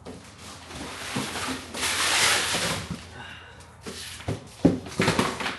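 Heavy portable power stations being handled and tipped upright onto their wheels: a long scraping, rubbing noise, then several sharp knocks about four and five seconds in as they set down.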